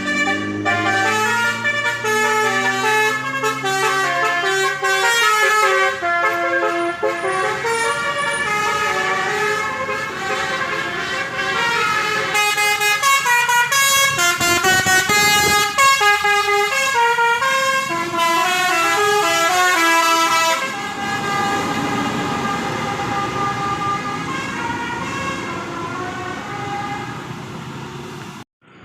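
A bus's multi-tone 'Basuri' telolet horn playing a quick stepping melody. From about 20 seconds in it gives way to a steadier, noisier sound that fades toward the end.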